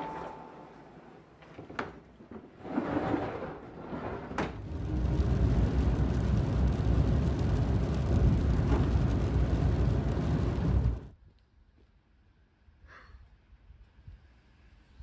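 A few clicks and knocks, then from about five seconds in a steady low rumble of road and engine noise inside a moving Honda N-VAN, which cuts off suddenly about eleven seconds in, leaving only faint sounds.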